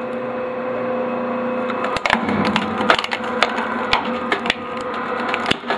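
Hard drive shredder's motor running with a steady hum while its rotating cutter blades grab a hard drive; from about two seconds in, a string of sharp, irregular cracks and snaps as the drive's casing and circuit board are torn apart.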